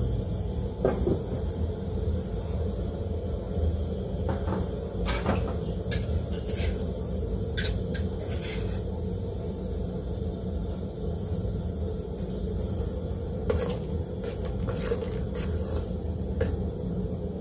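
An aluminium pot of fish stock heating back up towards the boil: a steady low rumble, with scattered light clicks and knocks.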